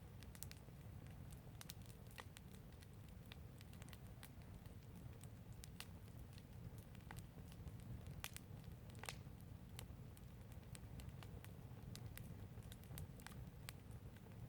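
Quiet wood fire crackling, with irregular sharp pops and snaps over a low steady rumble.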